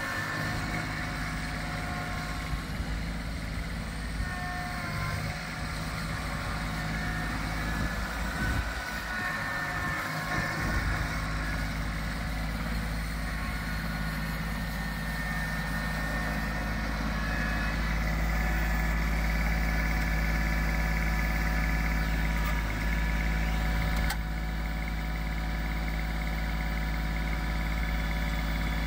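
Kubota B7610HSD compact tractor's 1.1-litre three-cylinder diesel running steadily as the tractor drives, growing louder from a little past halfway.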